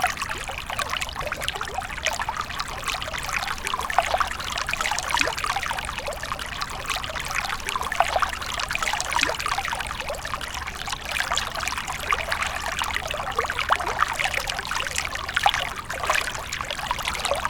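Water trickling and bubbling steadily, a dense continuous patter of many small splashes.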